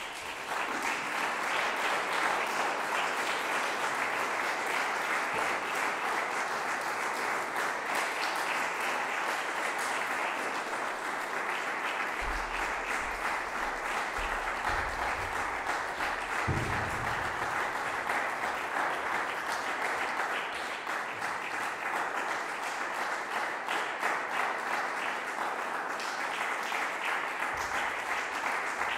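Audience applauding steadily, starting suddenly at the end of the piece and continuing throughout, with a few low thuds about halfway through.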